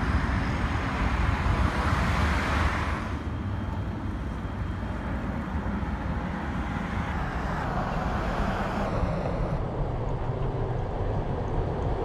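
Wind noise on the microphone of a phone moving along on a bicycle, with cars passing on the road alongside. The noise is brighter for the first three seconds, then duller, and swells a little after halfway as traffic goes by.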